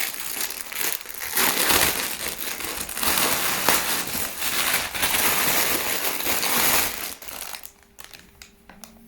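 Packaging crinkling and rustling as a garment is taken out of a mail-order clothing parcel, dying down about seven and a half seconds in.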